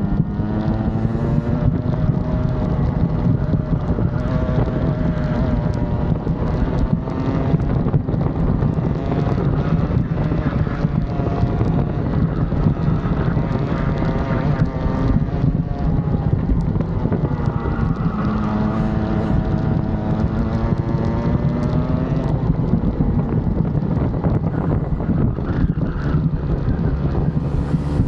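Rotax kart's two-stroke engine heard onboard at speed, its pitch climbing and dropping as the kart accelerates down straights and slows for corners, with wind buffeting the microphone.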